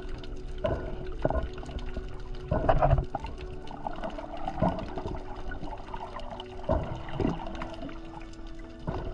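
Water heard through an underwater camera while snorkeling: muffled sloshing and bubbling with irregular knocks, loudest about three seconds in, over a steady low hum.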